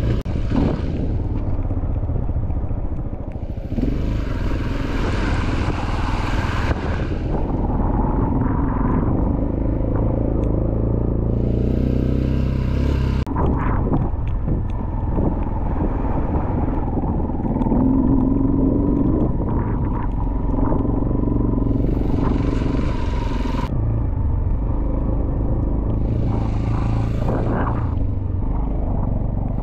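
Dirt bike engine running steadily while riding a rough track, its pitch shifting a little with the throttle, with occasional knocks from the bike over stones. Wind rushes across the microphone several times, each rush starting and stopping abruptly.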